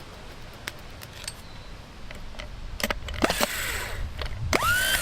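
Rebuilt truck starter motor being bench-tested on jumper cables. Metal clicks and clatter as the cable clamps touch, then near the end the motor spins up with a sharply rising whine.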